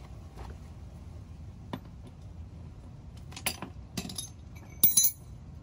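Small metal parts clinking and knocking as they are handled: a few light clinks about halfway through, then a louder double clink near the end.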